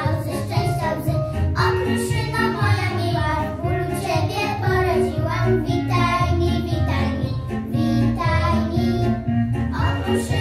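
A group of young girls singing a Polish Christmas pastorałka together, over an instrumental backing with a steady bass line.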